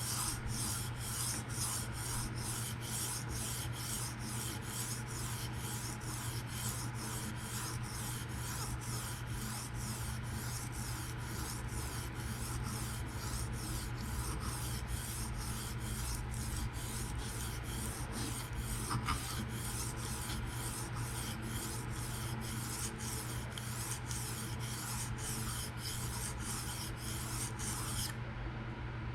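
A PM60 steel knife blade being stroked freehand across a diamond sharpening stone, rasping at an even pace of about two strokes a second, to work up a burr along the edge. The strokes stop shortly before the end.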